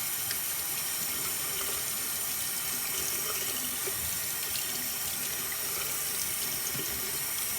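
Bathroom sink tap running steadily, water pouring into the basin as slime is rinsed off a toy dinosaur.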